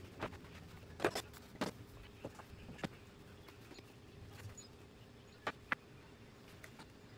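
Scattered knocks and clacks of plywood panels, a circular saw and a metal straightedge being handled and set down on sawhorses: several in the first three seconds, then two more a little past halfway. A faint steady hum runs underneath; the saw is not running.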